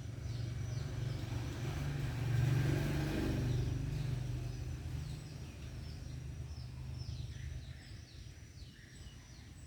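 Low, steady outdoor rumble that swells about two to four seconds in and then fades. Over it, birds chirp in quick short falling notes throughout.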